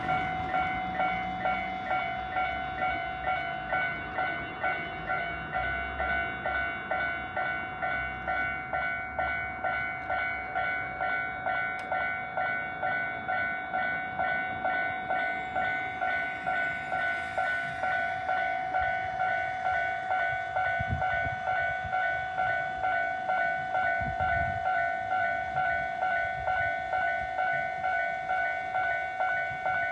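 Japanese railway level-crossing alarm: electronic crossing bells ringing on and on at about two strikes a second, the ordinary Watarase Keikoku Railway bell sounding together with the Tobu Isesaki-type bell, which signals that a train is approaching.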